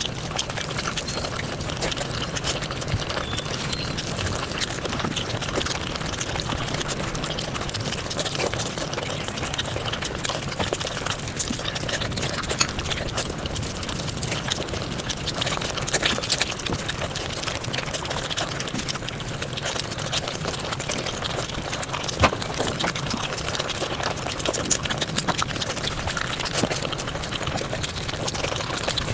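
Close-miked mukbang eating sounds sped up five times: chewing and mouth noises run together into a dense, unbroken stream of rapid clicks and crackles, with a few sharper snaps standing out.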